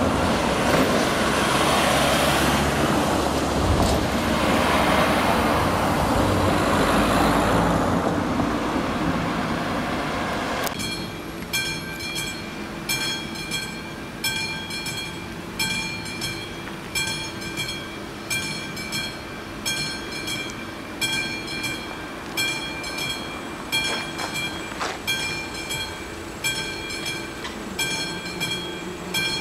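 Level-crossing warning bell of an AŽD 71 signal ringing in even strokes about once a second, starting abruptly about eleven seconds in. Before it, a loud rushing noise fills the first ten seconds.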